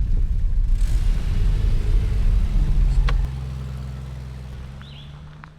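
Low rumble of a motor vehicle on the move. About three seconds in it drops suddenly to a quieter, steady engine hum that fades away.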